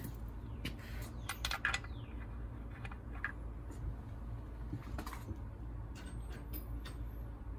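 Scattered light clicks and metallic clinks of hand tools and sockets being handled, over a low steady hum.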